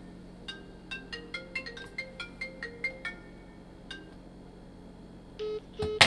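iPhone ringing with a ringtone of quick plucked notes that stops about three seconds in. Near the end come two short beeps, then a sharp knock as the phone is laid face down on a stone countertop.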